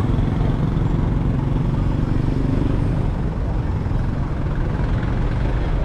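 City street traffic: engines of a light truck and motorcycles passing, a steady low rumble.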